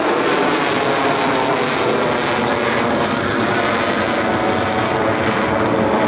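Blue Angels F/A-18 Super Hornet jets in diamond formation passing in flight, their engine noise a loud, steady rush.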